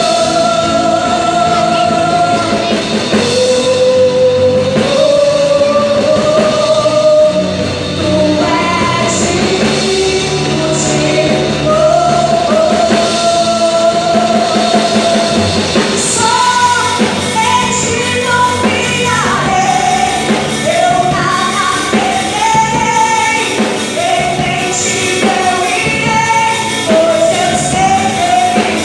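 Live worship song sung by a female lead vocalist over a band of keyboard, guitars, bass and drums. Long held notes in the first half give way to shorter sung phrases about halfway through.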